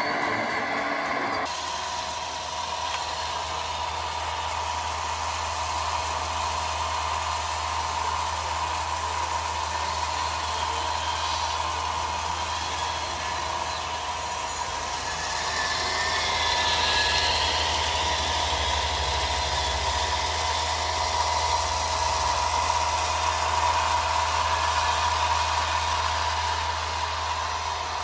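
A radio-controlled model vehicle running steadily, giving an engine-like hum with a constant mid-pitched whine.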